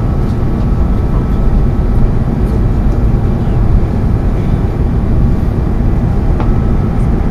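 Airbus A330-200 airliner landing, heard inside the passenger cabin: a loud, steady rumble of engines and airflow.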